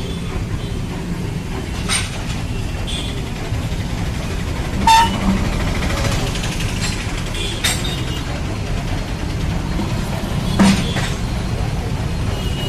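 Metal-cutting band saw machine running with a steady low hum, broken by a few sharp metallic clanks.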